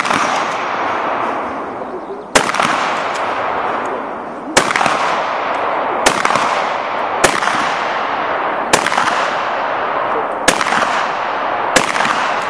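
A shotgun fired in a string of single shots, about eight in all, spaced roughly one and a half to two seconds apart. Each report trails off into a long echoing decay.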